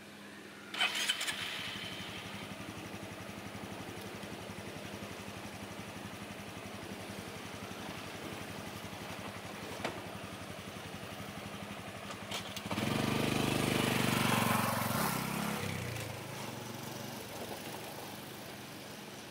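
Honda CT125 Hunter Cub's single-cylinder four-stroke engine starting, catching just under a second in and then idling steadily, with a couple of sharp clicks. About two thirds of the way in it revs up as the bike pulls away, then fades as it rides off.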